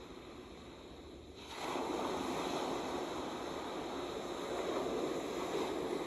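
Ocean surf on a beach: a lull as the last wave's wash fades, then about a second and a half in the next wave breaks and its rushing surf runs on steadily.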